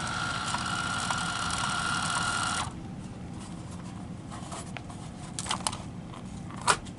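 Handheld label maker printing a label: its tape-feed motor whirs steadily with a high tone for about three seconds, then stops. A few light clicks follow, the sharpest one near the end.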